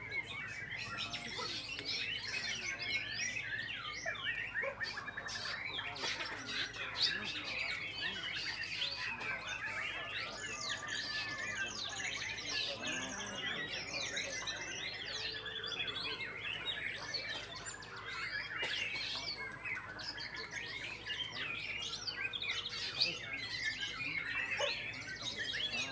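White-rumped shama singing in its cage amid a dense chorus of many other caged songbirds singing at once, a busy unbroken tangle of quick chirps, trills and whistled glides.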